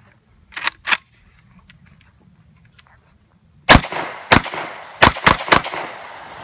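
Catamount Fury 12-gauge semi-automatic shotgun, a Saiga-12 clone, fired five times in quick succession, each blast echoing, the last three very close together. Before that, about a second in, there are two sharp clacks.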